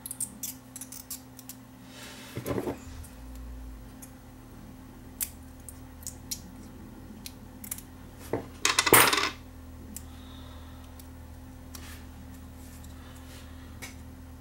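Small clicks and taps of hands working on an opened plastic 8-track tape cartridge and its tape, with a brief rustle about two seconds in. The loudest sound is a metallic clatter about nine seconds in, like a metal tool set down on the bench, over a faint steady hum.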